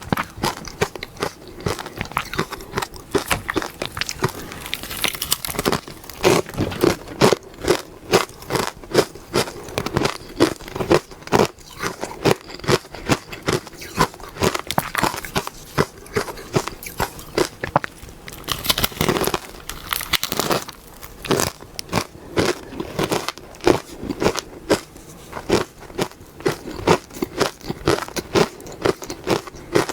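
Close-up crunching of powdered ice dusted with matcha being bitten and chewed: dense, continuous crackling bites, with louder bursts of crunching a few seconds in and again around two-thirds of the way through.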